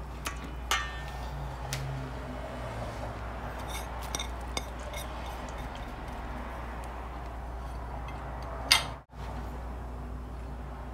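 A wire whisk clinking and scraping against a stainless steel mixing bowl as a thick dressing is stirred, with scattered light clinks and one louder clank just before 9 seconds.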